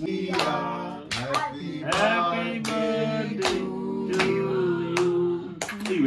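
People singing a birthday song together in long held notes, with hand claps keeping time.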